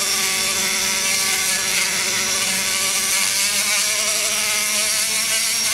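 High-speed die grinder spinning a fine sanding bit against the aluminium exhaust port of an LS cylinder head, smoothing the wall around the valve guide. A steady whine whose pitch wavers slightly as the bit loads against the metal.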